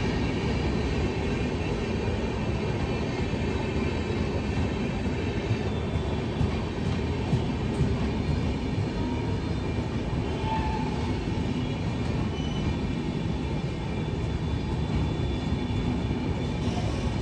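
Ajmer–Bandra Superfast Express's LHB passenger coaches rolling steadily past a platform: a continuous rumble of wheels on rail.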